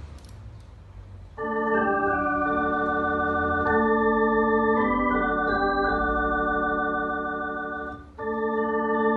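Two-manual electronic drawbar organ playing sustained four-part chords, starting about a second and a half in, with a short break near the end. The tenor and bass are set louder than the soprano, an unbalanced registration.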